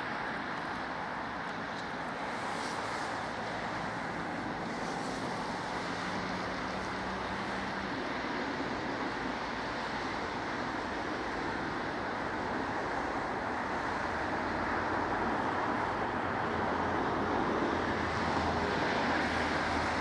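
Steady outdoor background rush of wind and distant traffic or surf, slowly getting a little louder, with a faint low hum in the first half. No bird calls stand out.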